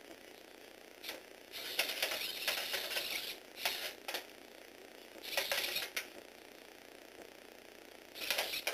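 Lego Technic robot dog walking, its small toy motor (from a Tomy Aero Spider) and plastic gear train and legs clattering in start-stop bursts. The longest burst runs nearly two seconds, starting about a second and a half in; shorter ones follow about halfway through and at the very end.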